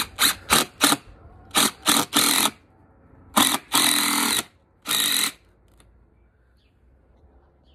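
Cordless impact driver driving a long screw down through a piloted wooden railway sleeper into the deck below, run in a series of short trigger bursts of rapid hammering, the later ones longer, until the screw is home about five seconds in.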